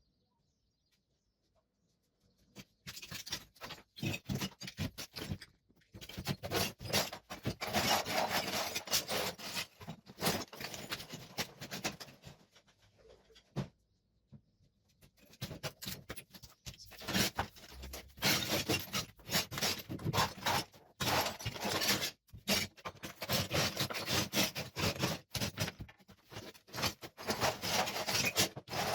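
Scraping and rubbing of a hand tool against ceramic tile and rubble, with many small clicks and rattles. It goes in two long stretches, starting about two seconds in, with a pause of a couple of seconds about halfway through.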